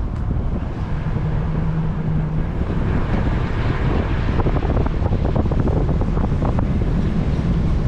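A vehicle driving slowly, its steady rumble mixed with wind buffeting the microphone and scattered small crackles.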